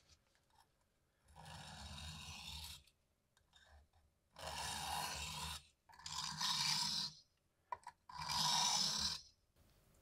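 A small pocket-knife blade being sharpened on a diamond sharpening plate: four long scraping strokes of steel drawn across the plate, with short pauses between them, the first stroke softer than the rest.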